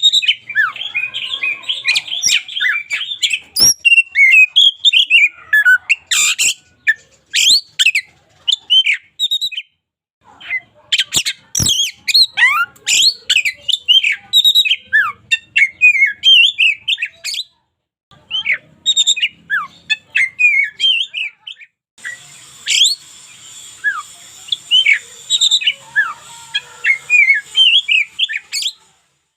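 Oriental magpie-robin singing a long, varied song of quick whistled notes and chattering phrases, broken by short pauses about ten and eighteen seconds in. A couple of sharp clicks are heard, and a steady hiss joins the song for the last third.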